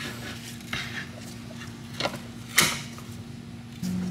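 Clicks and scrapes of an AN hose-end fitting being tightened down onto braided hose in aluminium AN vise jaws and then handled, with the sharpest click about two and a half seconds in. A steady low hum runs underneath and gets louder near the end.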